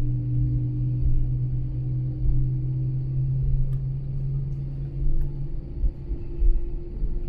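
Airbus A321 cabin noise while taxiing: a steady low engine hum over the rumble of the gear rolling on the taxiway, with a few bumps. The deepest part of the hum eases off about five seconds in.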